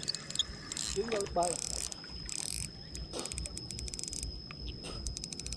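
Insects chirping in rapid pulsed trills, with short high buzzes, over a steady high whine and low wind rumble.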